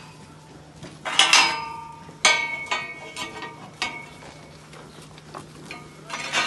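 Steel pipe railings of a cattle pen clanking: one loud metallic clang about a second in, then several lighter knocks that each ring briefly, and another loud clang near the end.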